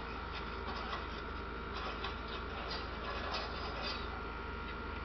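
Handling noise from a phone rubbed against a dog's short coat: faint irregular ticks and crackles over a steady low hum and a thin steady tone.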